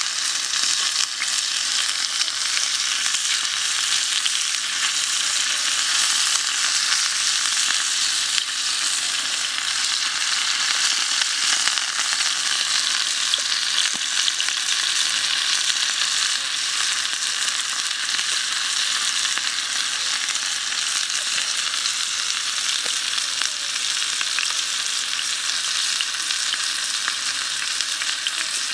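Pork rib pieces frying in hot oil in a square nonstick pan: a steady sizzle with fine crackling.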